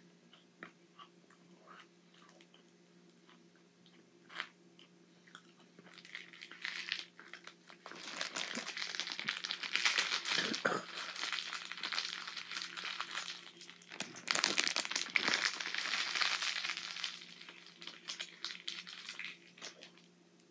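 Plastic snack wrapper crinkling and rustling as it is handled, loud from about six seconds in until near the end in two long spells, after a few seconds of soft chewing clicks.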